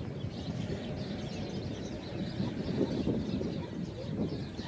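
Small birds chirping throughout, over a steady low rumbling noise.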